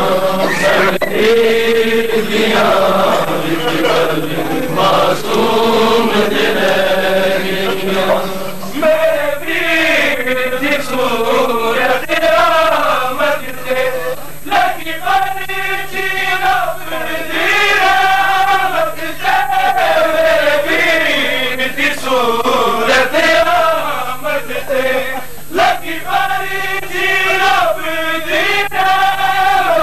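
Men's voices chanting a Punjabi noha, a Shia mourning lament, in sung phrases that rise and fall. A steady low hum sits under the voices.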